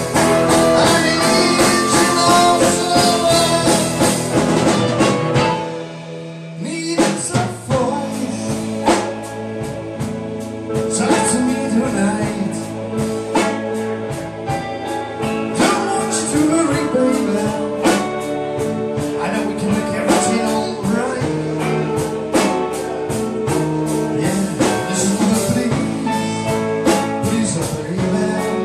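Live blues band playing a slow blues ballad: electric guitars, bass, keyboard and drum kit, with a man singing through the PA. The band drops back briefly about six seconds in before the drums come back in.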